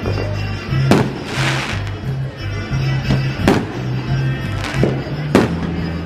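Aerial fireworks bursting: about half a dozen sharp bangs, some followed by a crackling hiss, over music with a stepping bass line.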